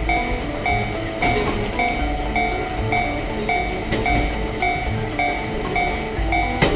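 Japanese railway crossing warning bell ringing over and over, about two rings a second, over the low rumble of a passing train, with a few sharp knocks.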